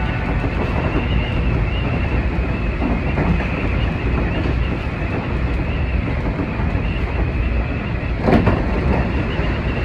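Seibu 20000-series electric train running along the line: a steady rumble of wheels on rail, with one short clack about eight seconds in.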